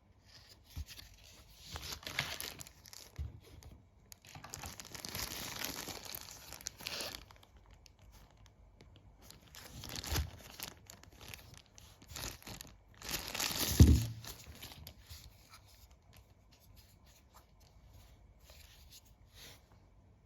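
Packaging being torn open and crumpled by hand in several rustling bursts, with a knock about two-thirds of the way through.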